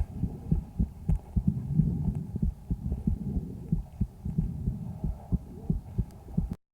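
Heartbeats and low breath sounds of a calf, heard through a stethoscope microphone held on the right side of the chest, where lung ultrasound found a lesion in the right lung only. The recording cuts off abruptly near the end.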